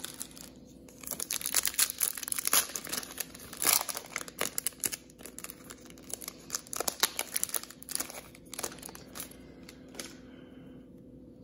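Foil wrapper of a Prizm football card pack crinkling as it is torn open and handled, a dense crackle that stops about ten seconds in.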